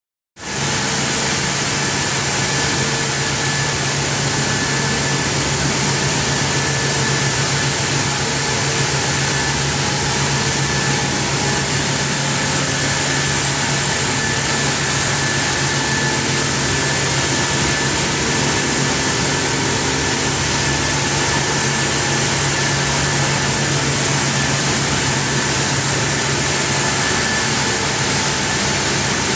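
Steady loud machinery noise of a rotary vacuum drum filter in a cane sugar mill: a constant low hum under an even hiss, with a thin steady high tone above.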